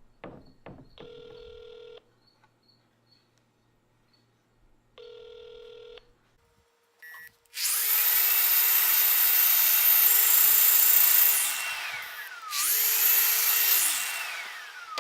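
Telephone ringback tone, two rings about four seconds apart, heard as a call is placed. Then two long bursts of loud hiss come, each with a steady tone that slides down in pitch as it fades.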